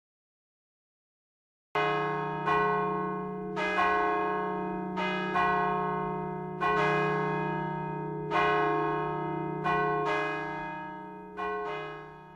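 Large church bells ringing in an uneven peal: about a dozen strokes, each ringing on and overlapping the next. They begin after almost two seconds of silence and die away near the end.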